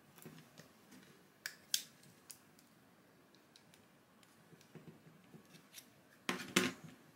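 Hard plastic clicks of a Neutrik Powercon plug being worked in a 3D-printed PLA in-line socket: a pair of sharp clicks about a second and a half in, a few light ticks, then a louder cluster of clicks near the end as the plug is unlatched and pulled free.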